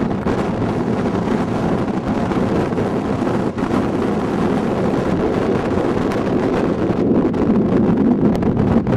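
Strong wind buffeting the camera microphone: a steady, loud, low rushing with no let-up.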